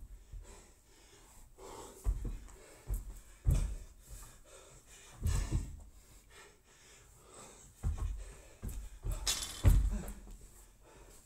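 Bar-facing burpees on a rubber gym floor: several dull thumps as the body drops flat and the feet land after jumping the barbell, with heavy panting breaths between them.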